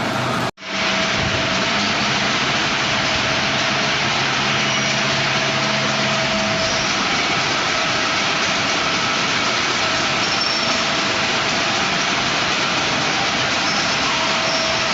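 Heavy waste-processing machinery running: a loud, steady mechanical din with a faint constant hum, broken by a brief gap about half a second in.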